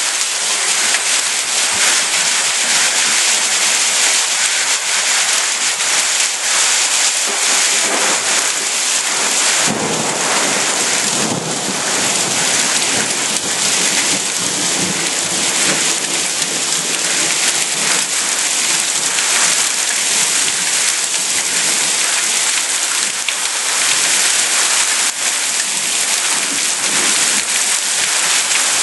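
Heavy rain mixed with small hail pelting a lawn and garden beds: a loud, steady hiss of drops and pellets striking, with a deeper rumble about ten seconds in.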